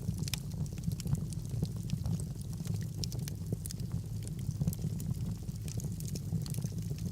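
Fire burning in a fireplace: a steady low rumble with frequent small crackles and pops scattered through.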